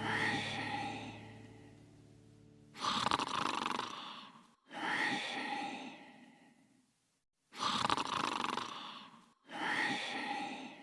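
Cartoon snoring: a sleeping character's slow, regular cycle of a short rasping in-breath followed by a longer out-breath that fades away, about two and a half cycles.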